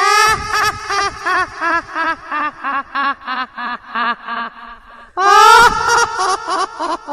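A high-pitched voice effect: a loud cry that breaks into a long run of rapid, evenly spaced cackle-like pulses, about five a second and slowly falling in pitch, then a second loud cry about five seconds in.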